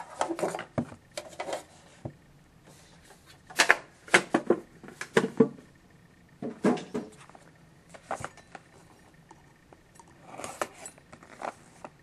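Hands handling a metal trading-card tin and the card pack inside it: groups of sharp clicks, clinks and rustles with short pauses between.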